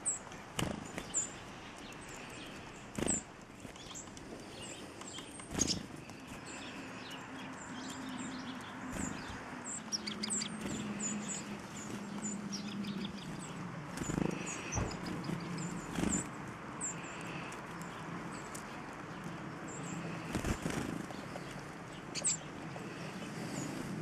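Black-capped chickadees giving many short, high chirps, with a few sharp fluttering thumps as the small birds land on and take off from a hand holding seed.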